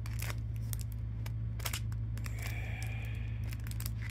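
Handling noise of small metal survival items and their packaging: scattered clicks and light rattles over a steady low hum, with a faint high squeak about halfway through.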